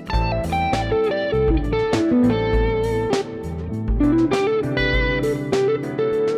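Electric guitar playing a quick melodic line of quartal arpeggios taken from the E minor pentatonic scale over an A minor 7 chord, the notes moving in fourths with hammer-ons.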